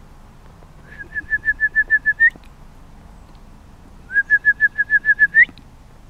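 A songbird singing two phrases of quick, evenly repeated whistled notes, each phrase ending on a higher, rising note.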